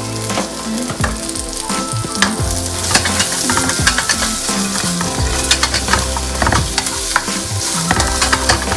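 Sliced fried potatoes and onion sizzling in a nonstick frying pan while being stirred and turned with a spatula. Steady sizzle throughout, with many quick scrapes and taps of the spatula against the pan.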